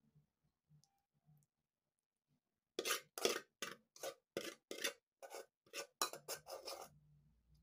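Metal spoon scraping scrambled egg out of a pot: a run of about a dozen quick scrapes, two or three a second, starting about three seconds in.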